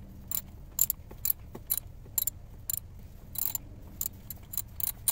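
Irregular metallic clicks, about two or three a second, from a hand tool working loose the two lower screws of a BMW N20 engine's thermostat housing.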